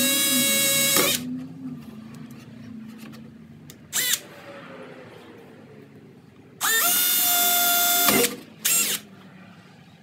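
Milwaukee Fuel cordless drill boring holes through a seat's foam padding. Its motor whines in short runs: one stops about a second in, a brief burst follows near the middle, then a longer run rises in pitch as it spins up, and a last short burst comes near the end.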